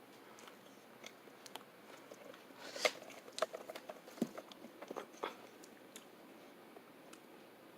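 Faint, irregular small clicks and ticks over quiet room tone, thickest in the middle few seconds.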